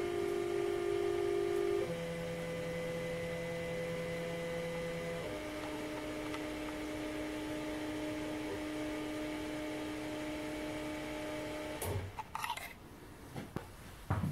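Ortur Laser Master 2 laser engraver's stepper motors whining in steady tones as the head traces a star; the pitch jumps to a new note twice as the motion changes. The whine cuts off about twelve seconds in when the job ends, followed by a few light knocks.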